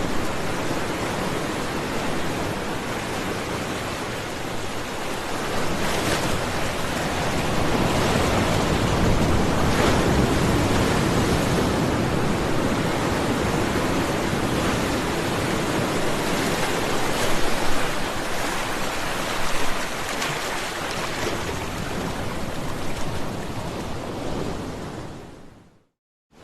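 Ocean surf: a continuous wash of breaking waves that swells louder and softer, fading out to silence near the end.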